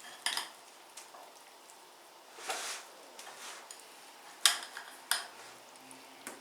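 Utensil knocking and scraping against a mixing bowl while the potato salad is stirred: about six sharp knocks, the loudest about four and a half seconds in, with a soft mushy rustle about two and a half seconds in.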